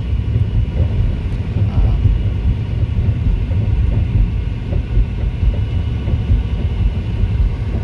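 Steady low rumble of tyre and road noise inside a moving car's cabin.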